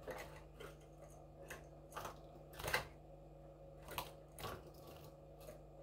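A linnet × canary hybrid hopping between the perches of a small wire cage, its feet and wings giving a few scattered light taps and rustles, the loudest a little before the middle, over a faint steady hum.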